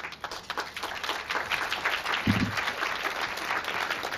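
Audience applauding: a steady patter of many hands clapping, with a brief low sound about two seconds in.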